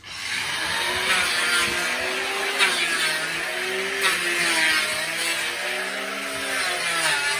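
Handheld electric saw starting abruptly and cutting through wooden planks, its motor pitch dipping and recovering as the blade bites into the wood.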